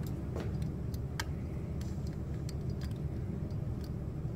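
Scattered small clicks and ticks of a plastic IC socket and circuit board being handled as the socket's legs are pushed into the board's holes, over a steady low hum.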